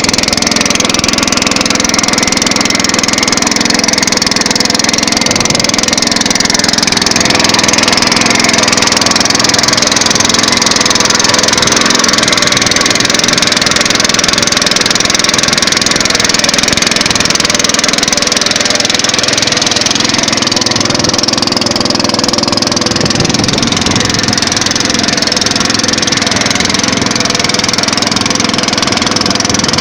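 An engine running steadily at an even speed, with a dense hiss over it.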